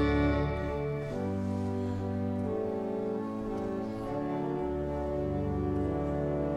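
Pipe organ playing the closing bars of a hymn: slow, sustained chords that change about every one and a half seconds, starting to die away right at the end.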